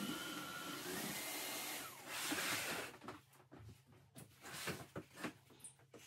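Vacuum cleaner running with a whine that rises in pitch about a second in and falls again, then a louder rush before it shuts off about three seconds in. A few light knocks and clicks follow.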